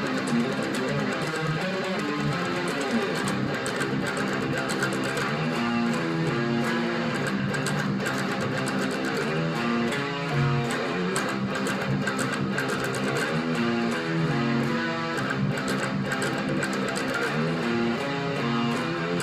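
Guitar music, strummed and picked.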